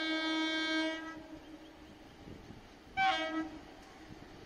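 Horn of an approaching EMU local train: a long blast that stops about a second in, then a second short blast about three seconds in.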